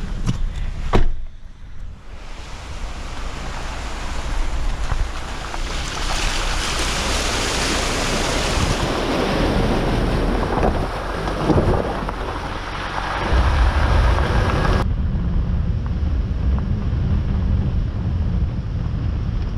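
Wind buffeting the microphone over rushing water, as on a boat under way. A deep rumble swells about two-thirds of the way through, and the high hiss drops away suddenly soon after.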